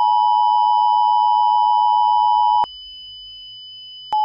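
Emergency Alert System two-tone attention signal, two steady tones sounding together, which cuts off after about two and a half seconds. A single steady tone at the lower pitch starts just before the end.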